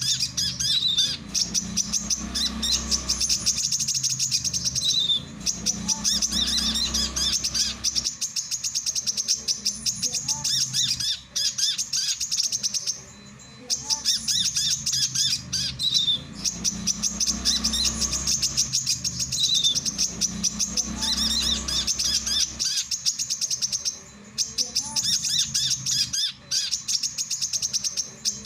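Male brown-throated sunbird singing: long runs of rapid, high, twittering chirps, broken by brief pauses a few times.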